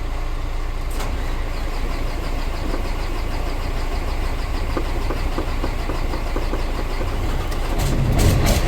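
Mercedes Axor truck's diesel engine being cranked by the starter, a steady pulsing churn that grows louder and catches near the end as the engine fires after a no-crank, no-start fault was repaired.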